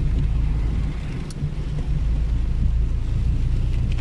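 Inside a car driving on a rain-soaked road: a steady low rumble of engine and tyres on wet tarmac, with an even hiss above it.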